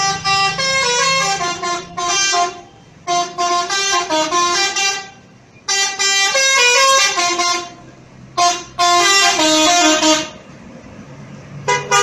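Telolet bus horn, a multi-tone musical horn, tooting short melodies in several loud bursts of about two seconds each, each burst a quick run of stepped notes.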